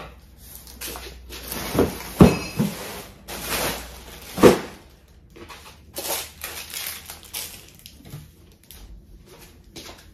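Rustling of clothes being handled and shifted about, with a few sharp knocks and thumps, the loudest about two and four and a half seconds in.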